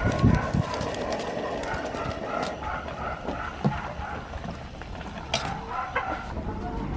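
A chicken clucking in an even run, about three clucks a second. Near the end come a few sharp clicks of a metal spoon against an aluminium pot.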